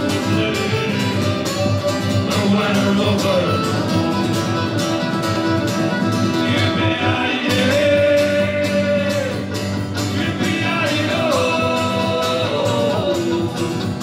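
Music with guitar and a steady beat, the melody held on long notes that slide from one pitch to the next.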